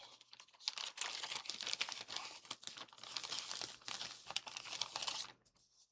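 Packaging crinkling and rustling as it is handled: a dense run of small crackles that dies away near the end.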